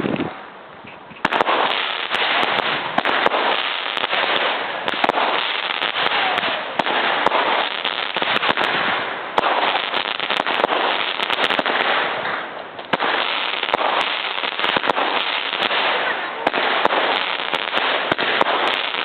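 Weco "Aligator" consumer fireworks battery (cake) firing: a dense, rapid series of bangs starting about a second in, with a short lull about two-thirds of the way through before the shots resume.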